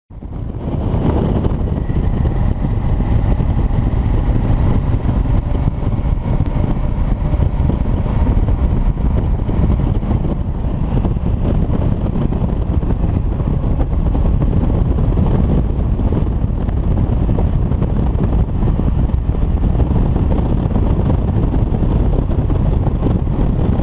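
Motorcycle riding steadily at road speed, its engine under a loud, even rush of wind and road noise on the bike-mounted microphone.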